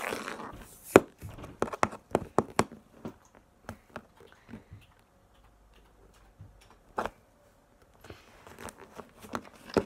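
Plastic toy dolls knocked and tapped against each other and the microphone as they are handled: a run of sharp clicks over the first three seconds with one loud knock about a second in, a single tap about seven seconds in, and a soft rustle of synthetic doll hair brushing the microphone near the end.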